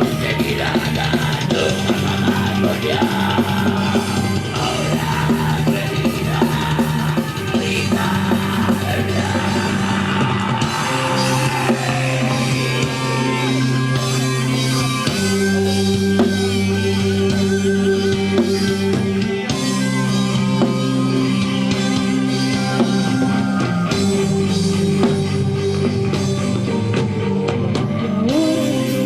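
Rock band playing live: drum kit, bass and held guitar notes, with the low notes shifting every few seconds.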